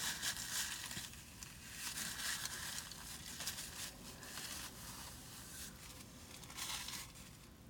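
Rustling and crinkling handling noise close to the microphone, coming in short irregular bursts.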